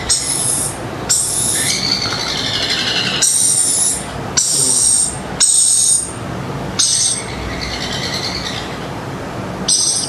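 Lorikeet chick giving shrill food-begging calls while being hand-fed from a syringe, about eight short calls repeating roughly once a second with brief gaps between them.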